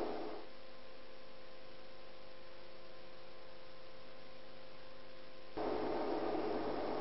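Steady electrical hum, a stack of even tones, after the open-air hiss cuts out abruptly; the hiss comes back just as suddenly near the end.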